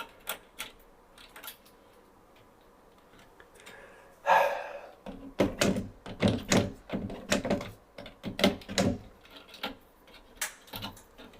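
Klein impact punch-down tool snapping as wires are seated into a 110 block: a run of sharp clicks, about three a second, after a short rustle of wire being handled.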